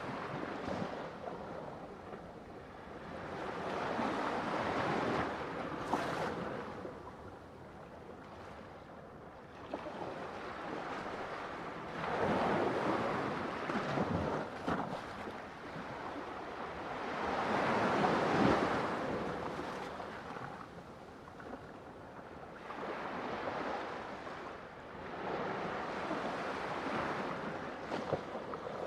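Ocean waves breaking and washing on a shore, the rushing surf swelling and falling every five or six seconds, with two larger breakers in the middle. A single sharp click about six seconds in.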